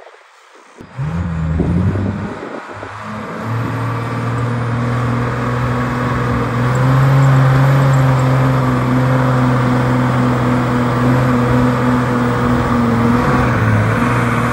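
A four-wheel-drive's engine running loudly and steadily. It comes in about a second in, and its pitch rises slightly midway and eases near the end.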